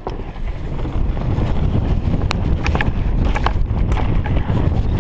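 Mountain bike rolling fast downhill on a rough dirt trail: a heavy rush of wind on the microphone and tyre rumble, louder from about a second in, with scattered sharp clicks and rattles as the bike jolts over bumps.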